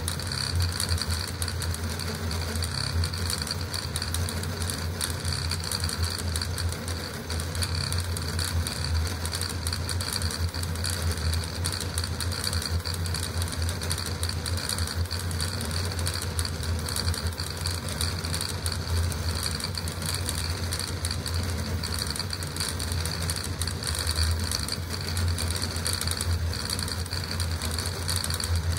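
Custom CoreXY 3D printer running a high-speed print at 600 mm/s with 80k acceleration: the stepper motors and belt-driven print head make a fast, continuous rattling buzz as the head darts back and forth, over a steady hum.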